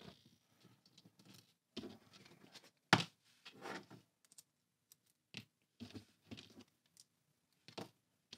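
Small steel bolts and washers clicking and clinking as they are handled and set down on a tabletop, a washer being slipped onto each bolt. The clicks come irregularly, with one sharper click about three seconds in.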